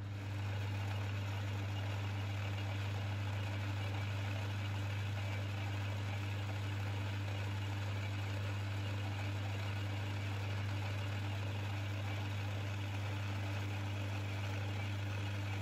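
Metal lathe running at a steady speed with a constant low hum, its chuck spinning a steel workpiece while a 9mm roller burnishing tool in the tailstock rolls the chamber to a mirror finish.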